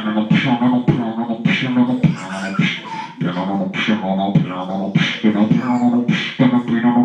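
A man beatboxing: mouth-made kick and snare strokes at a steady beat of about two a second, with a hummed, pitched tone held between the beats.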